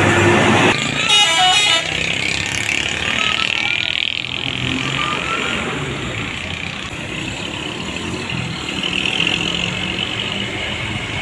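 A bus's multi-tone 'telolet' air horn sounds briefly about a second in, over the steady noise of passing road traffic.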